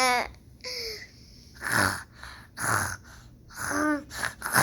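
A child making fake snores: two rough, throaty snore sounds about a second apart in the middle, with short voiced sounds before and after.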